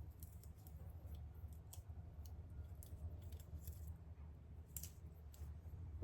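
Faint, scattered light metallic clicks and ticks of new spark plugs and a gap tool being handled as the plugs' gaps are checked, over a steady low hum.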